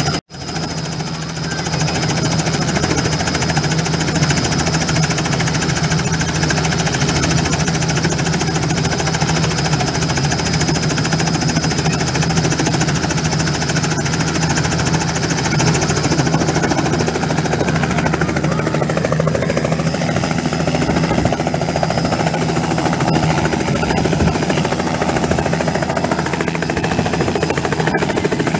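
Robinson R66 helicopter running on the ground at close range ahead of lift-off: a rapid, steady chop of the main rotor over a steady high whine from its Rolls-Royce RR300 turbine. The sound cuts out for an instant just after the start.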